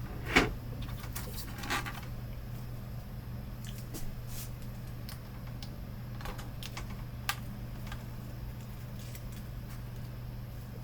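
Scattered light clicks and taps of hands fitting an internal cable into a monitor's main board connector, the sharpest about half a second in and a few fainter ticks later, over a steady low hum.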